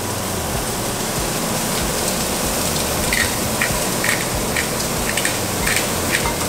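Chopped onions sizzling in oil in a skillet on a gas burner, a steady frying hiss. From about three seconds in, a run of short sharp clicks sounds over it.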